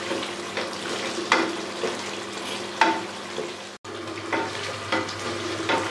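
Mutton curry frying in oil in an aluminium pressure-cooker pot, sizzling steadily as its water cooks off for the bhuna. A wooden spoon stirs and scrapes against the pot about every one and a half seconds.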